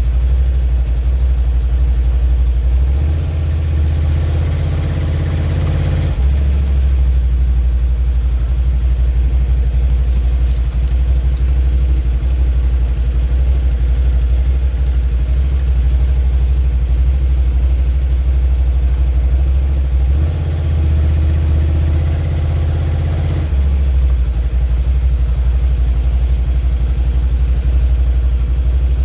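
A 2017 Can-Am Outlander ATV engine runs at idle, its note shifting for a few seconds twice, about three seconds and twenty seconds in. It is running in rear-wheel drive so that a little throttle turns the rear track hub until the wheel studs line up.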